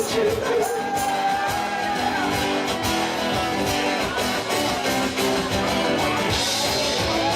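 Rock band music: guitars over a steady drum beat.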